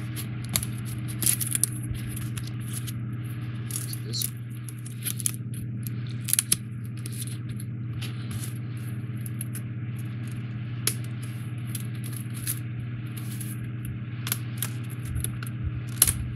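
Scattered clicks, taps and scraping as a CubicFun 3D puzzle's parts sheet is handled and pieces are pressed out of it, over a steady low hum.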